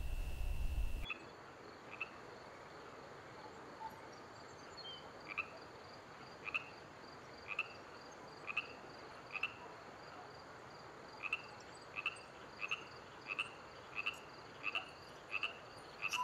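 A low hum cuts off about a second in. Then there is faint outdoor quiet, with a small animal's short chirping call repeated about once a second, coming faster near the end.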